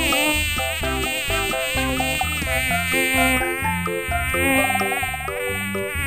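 Mosquito's high-pitched whining buzz, continuous and wavering slightly in pitch.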